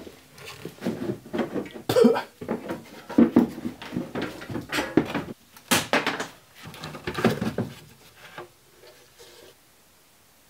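A car's plastic rear bumper cover being unclipped and pulled off: a quick, irregular run of plastic clicks, knocks and rattles, thinning out after about eight seconds.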